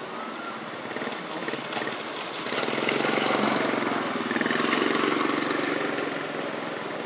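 A motor engine passing by with a fast, even throb, swelling to its loudest in the middle and fading again near the end.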